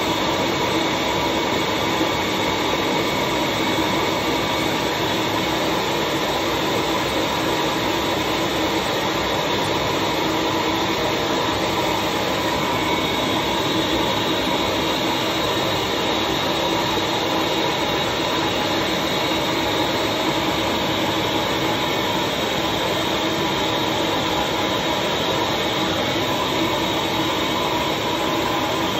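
The vacuum motor of a leaf-casting suction table running steadily, a constant rushing noise with a steady whine in it, as it draws water down through the paper pulp.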